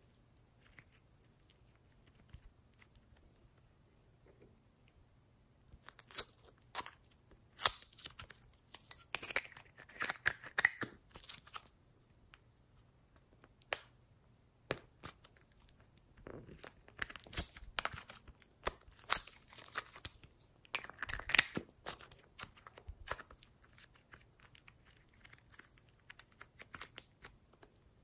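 Slime being squeezed, stretched and pressed by hand, giving irregular sticky crackles and pops. They come in two busy stretches with sparser clicks between.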